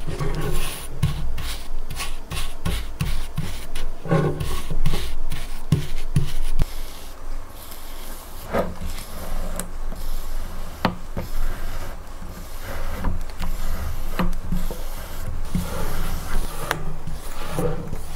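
A metal spoon scraping, spreading and pressing buttered crushed digestive-biscuit crumbs into a lined cake tin for a cheesecake base: a gritty rasping scrape broken by many small irregular taps as the crumbs are packed down and pushed up the edges.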